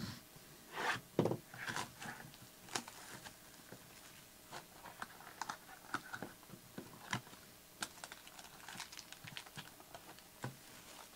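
Cardboard hobby box of 2017 Topps Tier One baseball cards being handled and slid open by hand: irregular taps, clicks and scrapes of fingers on card stock, the loudest about a second in.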